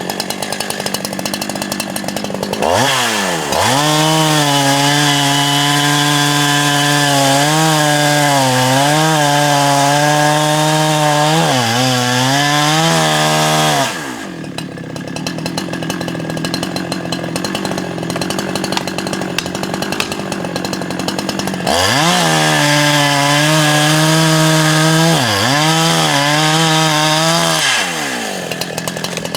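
Two-stroke chainsaw run up to full throttle and cutting dead oak, its pitch sagging briefly as the chain bogs in the wood. It makes two cuts of about ten seconds each, dropping back to idle between them.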